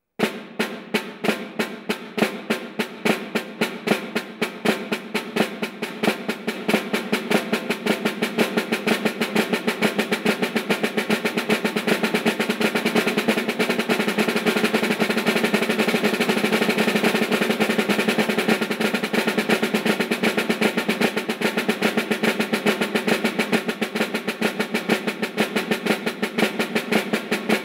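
Snare drum played with sticks in the Swiss Army triplet rudiment, each group a flam followed by a stroke from the same hand and a stroke from the other hand. It begins as clearly separate strokes and speeds up into a fast, near-continuous roll.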